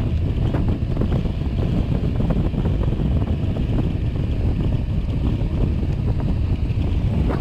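Wind buffeting the microphone with a steady low rumble, with small ticks and rattles scattered through it.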